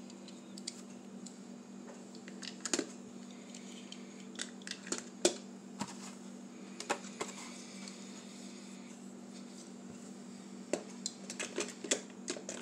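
Light clicks and clacks of die-cast toy cars being handled and set into the compartments of a clear plastic storage case, coming in scattered bunches, over a steady low hum.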